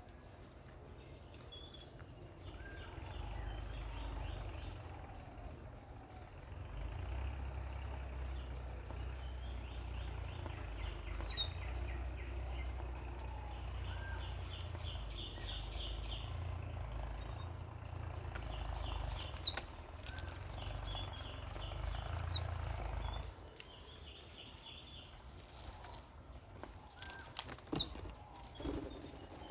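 Outdoor ambience: scattered short, sharp bird chirps over a steady high-pitched insect drone and a pulsing insect trill, with a low rumble underneath that stops about twenty-three seconds in.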